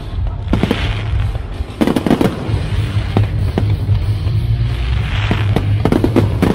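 Fireworks going off: sharp bangs, several in quick clusters, with bursts of crackling. Music with a heavy, steady bass plays underneath.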